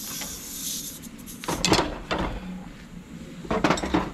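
Steel hand tools clanking against the front differential's mounting bolts and bracket: a few sharp metallic clanks with ringing about a second and a half in, and another cluster near the end. A hiss fades out in the first second.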